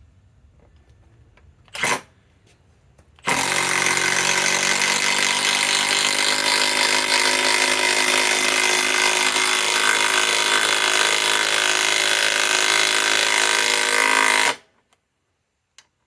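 Milwaukee M12 Fuel Stubby 3/8-inch cordless impact wrench driving a 5-inch lag screw: a short trigger blip about two seconds in, then about eleven seconds of continuous hammering run that stops abruptly.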